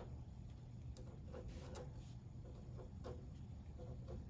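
Pen writing numbers on the plastic face of an M16 plotting board: faint, irregular light ticks over a low steady hum.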